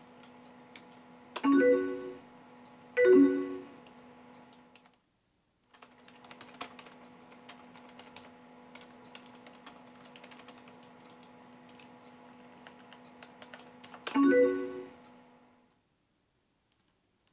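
Computer keyboard typing, a run of light clicks over a steady low hum, broken by three short pitched chimes from AOL Instant Messenger as messages are sent and received: two close together about a second and a half in, and one near the end.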